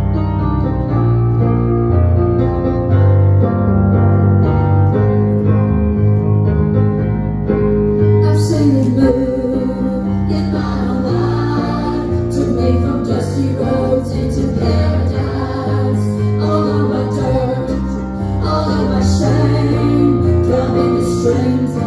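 A live worship band playing a gospel song: keyboard chords over a bass line, then about eight seconds in drums with cymbals come in and singing begins.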